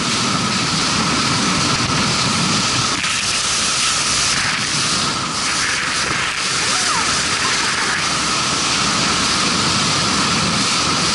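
Power boat running at speed through choppy water: a loud, steady rush of wind buffeting the microphone and water spraying off the hull.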